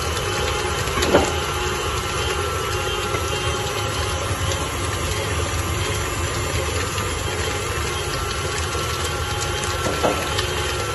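KitchenAid tilt-head stand mixer's motor running steadily at a low speed, its flat paddle beating eggs into a sticky tapioca-and-cheese dough. A short sharp knock comes about a second in and another near the end.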